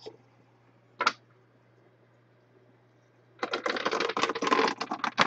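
A small puck clattering down a Plinko-style pegboard, a fast run of clicks as it bounces off peg after peg for about three seconds near the end, after a single click about a second in.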